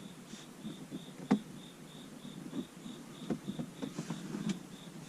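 Light clicks and taps of plastic interior trim and cable being handled as a dash cam power wire is tucked into place, one sharper click about a second in. Behind them, a faint, steady high chirp repeats about three times a second.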